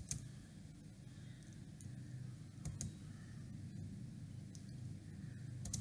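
Faint room tone with a low steady hum and a few soft clicks: one at the start, two close together near the middle and one at the end.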